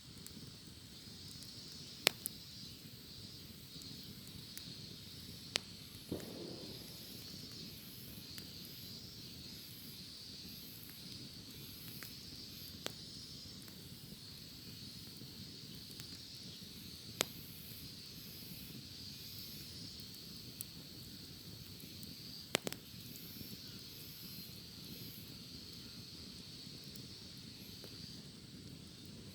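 Wood fire crackling with a few sharp pops spread through it, under a steady chorus of cicadas with a higher buzz pulsing about once a second.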